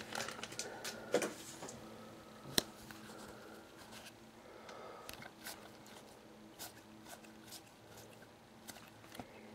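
Faint handling of freshly opened trading cards and their foil wrapper: scattered light clicks and short rustles as the cards slide against each other, with one sharper click about two and a half seconds in.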